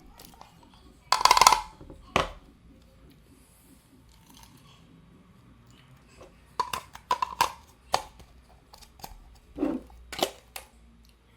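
Scattered clicks and knocks of hard objects being handled, with a short rattle about a second in and clusters of clicks in the second half.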